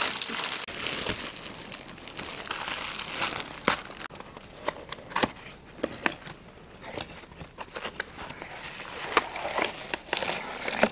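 Packaging being handled: plastic and cardboard crinkling and rustling, with scattered sharp clicks and crackles.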